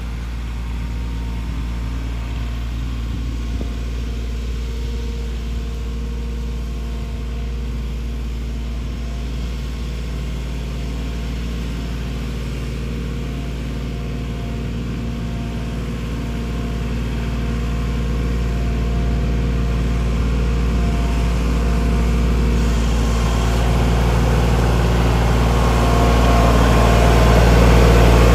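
New Holland Workmaster 25 compact tractor's three-cylinder diesel engine running steadily while the tractor works with its front loader, getting louder over the last dozen seconds as it comes up close.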